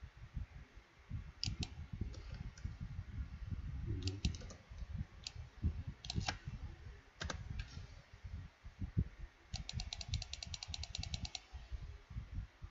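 Computer keyboard clicks: single key presses spaced out over several seconds, then a fast even run of about sixteen clicks near the end. Dull low thumps sound underneath throughout.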